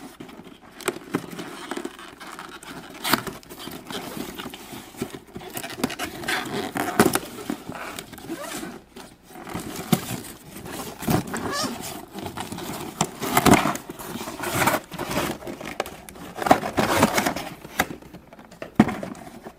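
A toy box being opened and unpacked by hand: irregular rustling, scraping and crinkling of cardboard and plastic packaging, with frequent small knocks and clicks.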